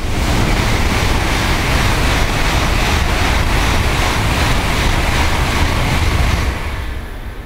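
A 16-car Tokaido Shinkansen train passing through the station at speed, close by: a loud, steady rush of air and wheel noise that starts abruptly as the nose arrives, lasts about six and a half seconds while the train goes by, and drops off quickly once the tail has passed.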